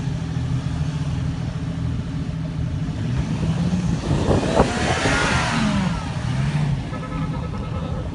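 Off-road 4x4 engine running and revving, its pitch rising and falling a few times. A louder rushing noise swells and fades about halfway through.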